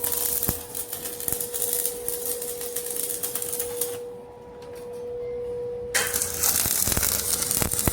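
Arc welding on an iron gate: the electric arc crackles and sputters, stops for about two seconds in the middle, then strikes up again. A steady hum runs under it.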